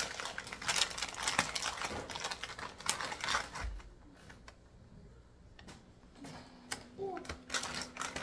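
Inner bag of a box of pancake baking mix being crinkled and pulled open by hand: a dense crackling rustle for about four seconds, then a few scattered crinkles.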